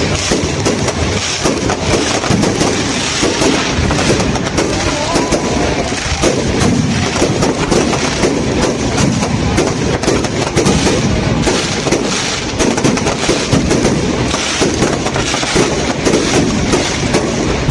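Fireworks display: many shells going off in quick, dense succession, bangs and crackling with no break.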